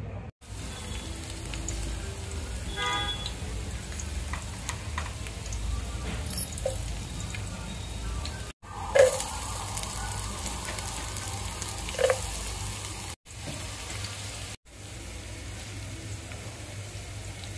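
Sliced garlic and onion frying in hot oil in an aluminium pot: a steady sizzle that stops and restarts several times. About nine seconds in a knock comes with a louder burst of sizzling, and there is another knock a few seconds later.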